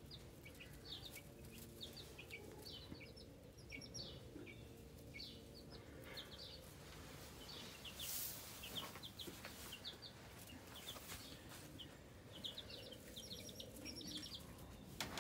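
A brood of week-old chicks, Cornish meat chicks and black sex link layer chicks, peeping faintly: many short, high peeps scattered throughout. A brief rustle about eight seconds in.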